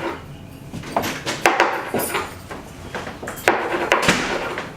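Kitchen clatter: a handful of sharp knocks and clunks, about five in four seconds, as things are set down and handled on a counter.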